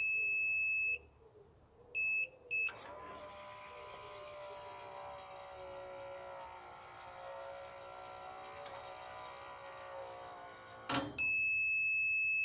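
Agrimatic automatic chicken-coop door closing on its manual button: a long electronic beep, two short beeps about 2 seconds in, then its electric motor runs with a steady whine for about eight seconds as the door panel lowers. The motor stops with a click near the end, and another long beep follows.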